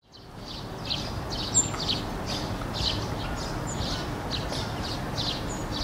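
Tufted duck ducklings peeping: short, high, slightly falling calls repeated two or three times a second. A steady low rumble runs underneath, and the sound fades in over the first second.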